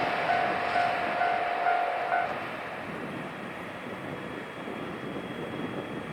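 Kiha 261 series diesel limited express train running past and fading away, while the level crossing's alarm bell dings about twice a second and stops about two seconds in.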